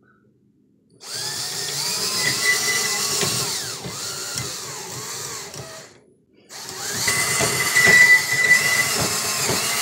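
Cordless drill at its lowest speed driving the worm-gear winch through a 19 mm socket, winding steel cable onto the spool. The motor's pitch rises and falls as it runs, with a thin high whine at times. It starts about a second in, stops briefly about six seconds in, then runs again.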